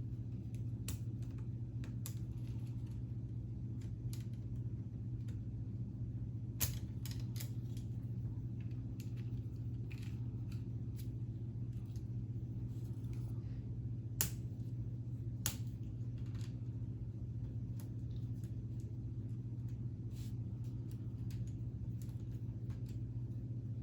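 Scattered light plastic clicks and snaps of K'Nex pieces being handled as the ride model is folded down for transport, a few sharper clicks standing out, over a steady low hum.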